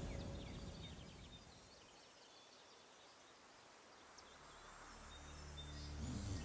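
Faint outdoor nature ambience with scattered short, high chirps, as background music fades out at the start. A low, steady music drone fades in about two-thirds of the way through.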